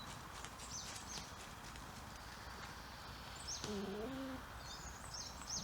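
Quiet woodland ambience with a few short high bird chirps, and a brief low pitched hum that steps up in pitch about three and a half seconds in.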